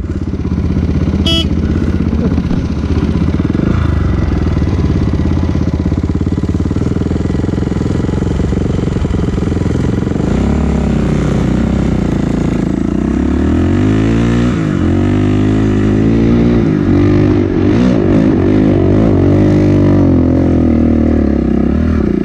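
Dirt bike engine heard up close from the bike itself: running steadily at low revs for about the first half, then revving up and down again and again as the bike is ridden off and up a steep slope.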